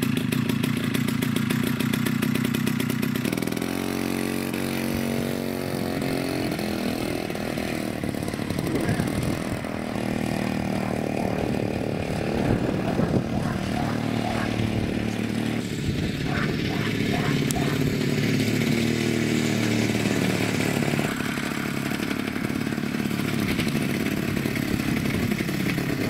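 Two-stroke engine of a Ural-2 Elektron chainsaw, mounted on a homemade moped, running while the moped is ridden. It holds one steady pitch for the first few seconds, then rises and falls with the throttle.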